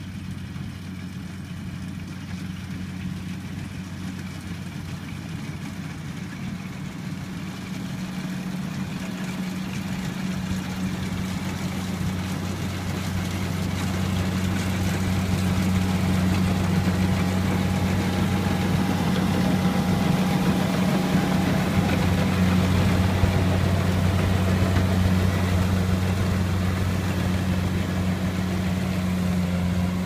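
Engine of a tracked rice combine harvester running steadily as it harvests, a low hum that holds one pitch. It grows louder through the first half as the machine draws near.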